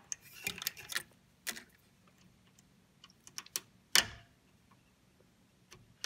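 Scattered light clicks and taps of a cable and its plastic connector being handled against a computer motherboard, with one sharper click about four seconds in.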